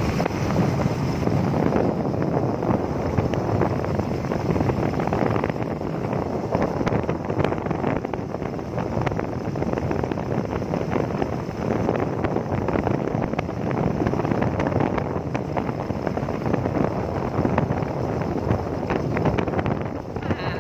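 Wind rushing over the microphone of a moving motorbike, a steady buffeting rush with the bike's running noise mixed in.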